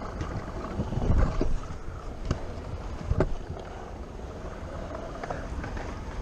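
Stunt scooter wheels rolling over skatepark concrete, a steady low rumble with wind buffeting the microphone. There are two sharp knocks, a little over two and about three seconds in.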